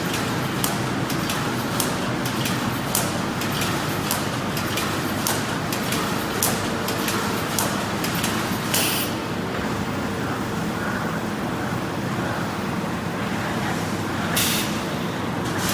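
Automatic wire mesh welding machine running: a steady mechanical din with repeated sharp clicks, and two short loud hisses about halfway through and near the end.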